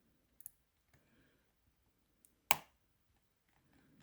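Clicks from a Shield C30MKR three-wheel combination padlock as its number wheels are turned under shackle tension while feeling for gates: a few light clicks and one sharp, louder click about two and a half seconds in.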